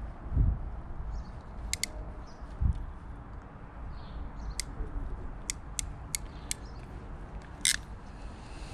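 A wire connector being pushed on and crimped with pliers, heard as a series of sharp clicks. Two dull knocks from handling the tool come in the first three seconds.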